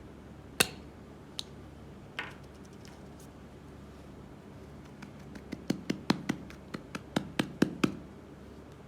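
Chalk being cut and crushed: one sharp crack about half a second in, another near two seconds, then a quick run of about a dozen crisp cracks, several a second, in the last three seconds.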